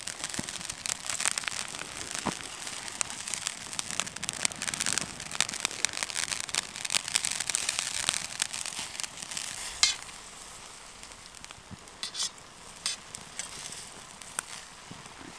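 Sausage and mushrooms sizzling and crackling in a pan of water over a campfire, with a utensil stirring. The sizzle is dense for about ten seconds, then dies down to a quieter hiss broken by a few sharp crackles.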